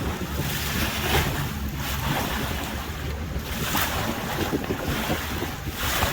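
A tour boat under way at sea: a steady low engine rumble under rushing water at the hull, with wind buffeting the microphone in surges.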